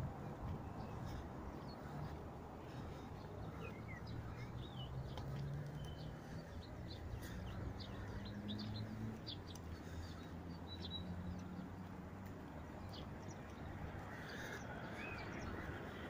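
Outdoor ambience of low, steady traffic rumble with an engine hum that slowly rises in pitch over the first half, and scattered short bird chirps and calls through the middle.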